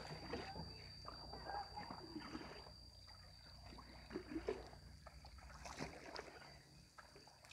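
Faint water sounds of a bamboo raft being paddled on a river, soft splashes and gurgles, with a thin steady high-pitched whine throughout.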